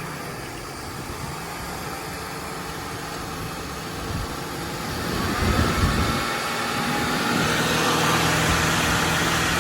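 Car engine idling, then revved about five seconds in and held at a higher speed to the end, run while the owner and a friend listen for a noise they tie to the power steering.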